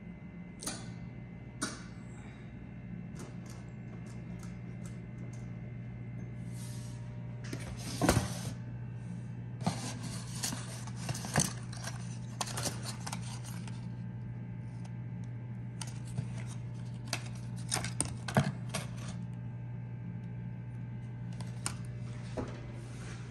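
An R-390A/URR radio receiver's rotary function switch clicks twice, and a steady low hum from the powered-up receiver sets in and runs on. Over it, cardboard and paper wrapping rustle and crackle as a box is handled, in scattered bursts through the middle.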